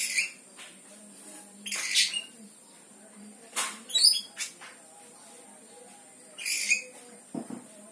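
A kitten making short, high-pitched cries, about four of them spaced a second or two apart, with a low thump near the end.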